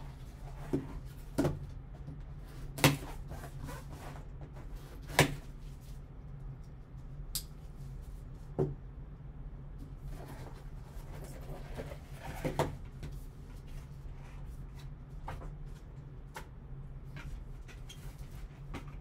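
A cardboard card box handled and opened with gloved hands: scattered sharp knocks and taps as it is set down and the lid taken off, over a steady low hum.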